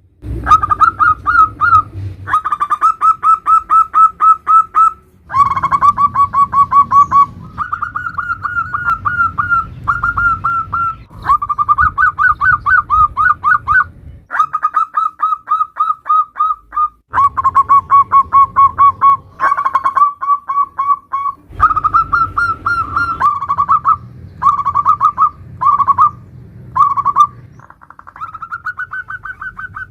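Zebra doves (perkutut) cooing: phrase after phrase of quick, stuttering coos around a single pitch, with short pauses between phrases.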